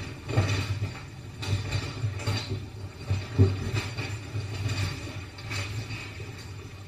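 Low, uneven rumbling with irregular knocks and clatter, from kitchen work.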